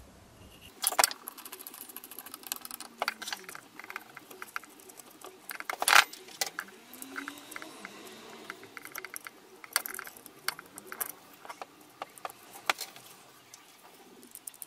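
Small metal clicks, taps and scrapes of hand work on a Motobecane Mobylette moped engine's ignition stator plate: a screwdriver snugging the contact-breaker points screw and the parts being handled. Two sharper knocks stand out, about one and six seconds in.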